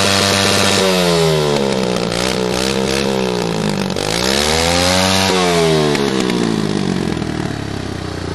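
Kawasaki mini dirt bike engine revving hard. It is held high at first, drops, is blipped up and down twice, then falls back toward idle near the end.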